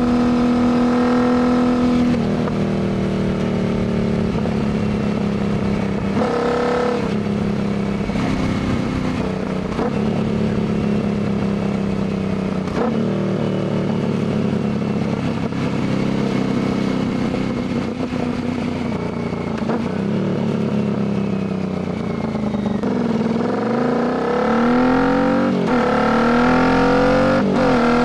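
Royal Enfield Continental GT 650's parallel-twin engine through a Diablo full exhaust, ridden at road speed with the revs rising and falling. In the last few seconds the revs dip, then climb in rising sweeps, each broken by a quick upshift, as the bike pulls up through the gears.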